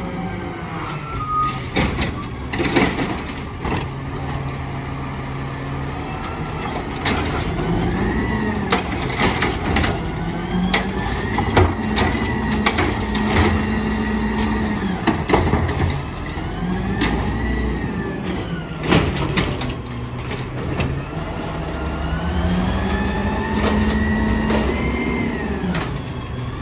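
Compressed-natural-gas engine of a Peterbilt 320 garbage truck, revving up and holding twice to drive the Amrep automated side-loader arm's hydraulics as carts are lifted and emptied. Several sharp clanks of the carts and arm come through, with air hissing from the brakes.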